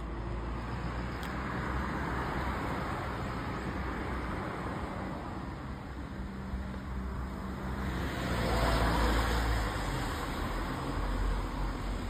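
Road traffic on newly repaved asphalt: vehicles passing with tyre and engine noise, swelling once about two seconds in and again, louder, about nine seconds in.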